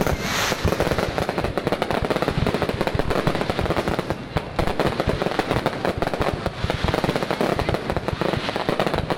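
Fireworks going off in a continuous rapid crackle, many sharp pops every second without a pause.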